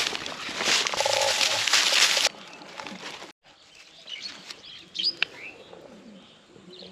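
A loud, dense rushing and crackling noise that cuts off abruptly about two seconds in. After a brief break, birds chirp with short high calls over a quiet outdoor background.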